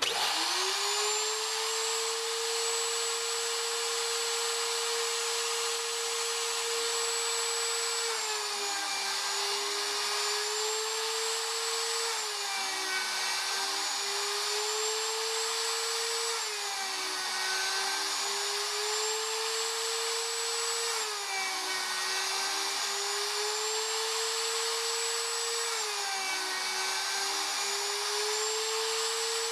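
Porter-Cable router motor on a CNC router starting up, its whine rising over the first second, then running steadily. From about eight seconds in, the whine dips in pitch and recovers about every four seconds as the 1-inch bit plunges into the wooden cube and bogs under the cut.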